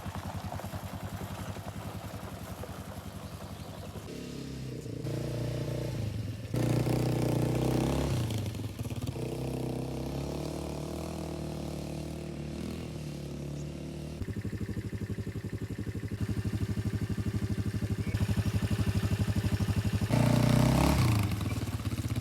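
ATV engine running while being ridden, its pitch and loudness shifting up and down with the throttle, loudest about a third of the way in and again near the end.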